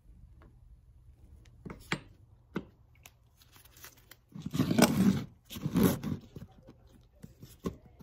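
Handling noise from nitrile-gloved hands working right next to the microphone. A few light clicks come first, then two loud rough rustling scrapes about halfway through, the second one shorter.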